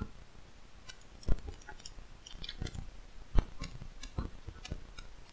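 Scattered, irregular light clicks and knocks over faint room noise, with two louder knocks about a second in and near the middle.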